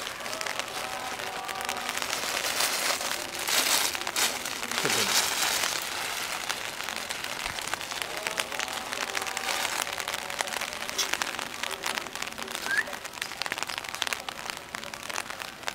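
Rain pattering steadily, a dense patter of fine drops that swells briefly a few seconds in.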